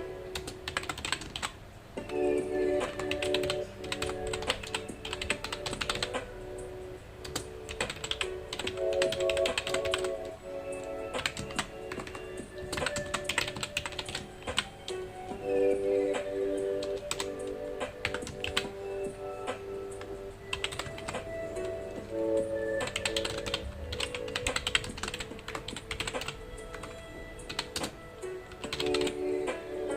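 Typing on a computer keyboard: fast runs of key clicks in bursts of a few seconds with short pauses between, over soft background music of held, slowly changing notes.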